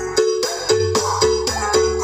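Music with a steady beat of about four notes a second over a deep stepping bass line, played loud through a sound-system rig under test.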